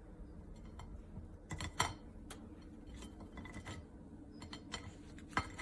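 Irregular mechanical clicks and clacks over a low hum, with the sharpest clacks a little under two seconds in and again near the end.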